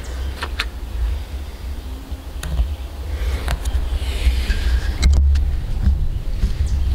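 Wind buffeting the microphone as an uneven low rumble, with a few light clicks and a brief rise of hiss about four seconds in.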